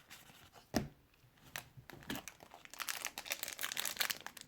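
Wrapper of a hockey trading card pack crinkling and tearing as it is opened by hand. A single click comes just under a second in, then the crinkling builds and grows denser toward the end.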